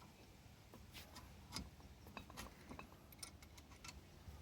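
Near silence, with a dozen or so faint, scattered clicks and small taps.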